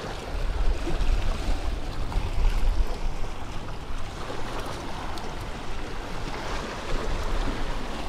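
Small waves splashing and washing against jetty rocks, with wind buffeting the microphone as a steady low rumble.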